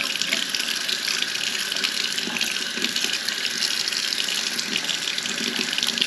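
Kitchen faucet running steadily, its stream splashing through a mesh RV air-conditioner filter into a stainless steel sink as the filter is back-flushed to wash out trapped dirt.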